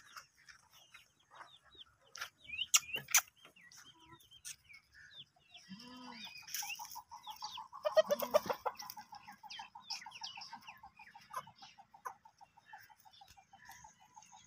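Farmyard chickens clucking, with scattered high chirps. A few sharp clicks come about three seconds in, and from about six seconds in a fast, even run of short repeated notes carries on.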